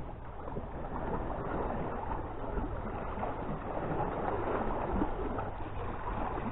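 Sea water washing and lapping against the shore, a steady rushing noise, with wind on the microphone.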